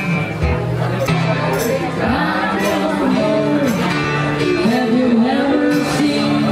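Live acoustic duo performing: a singer's melody over acoustic guitar accompaniment.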